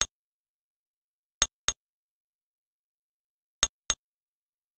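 Short, sharp click sound effect from a typing tutor program, heard in three quick double clicks about two seconds apart.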